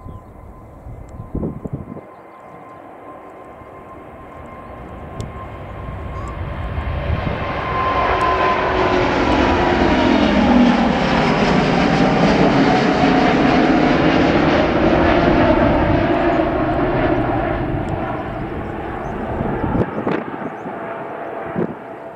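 Airbus A350-900's twin Rolls-Royce Trent XWB turbofans at takeoff thrust as the airliner rolls, lifts off and climbs past. The jet noise swells over the first several seconds, is loudest in the middle with its whine falling in pitch as it passes, then fades as it climbs away.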